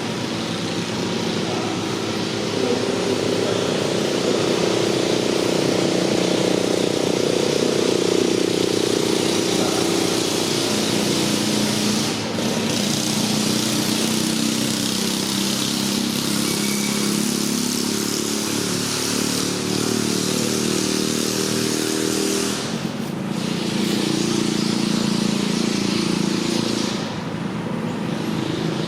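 A vehicle engine running steadily, its pitch drifting slowly down and back up, with three brief dips in level.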